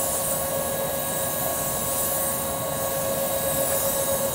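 A steady machine whine over a constant hiss, holding the same pitch throughout.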